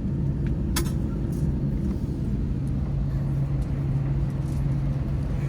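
Steady low rumble and hum inside an airliner cabin on the ground just after landing, with one sharp click about a second in.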